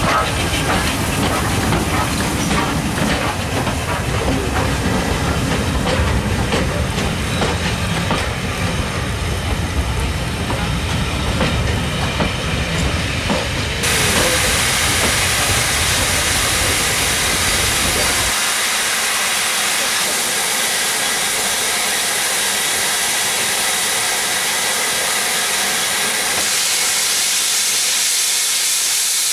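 Steam train on the move, rumbling with many short clicks and clanks, followed from about halfway by a steady loud hiss of steam escaping at the front of the cylinders of an LMS Black Five 4-6-0 steam locomotive standing in the station.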